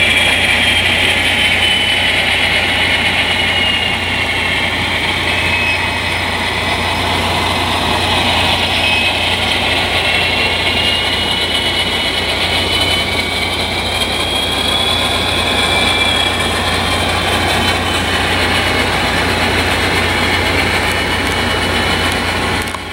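Sound decoders in HO-scale diesel locomotives playing a steady diesel engine sound through their small speakers, with a high whine that wavers up and down in pitch.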